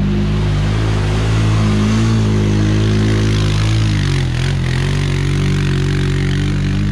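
Off-road vehicle engine running at steady revs; its pitch dips about four seconds in, then climbs back.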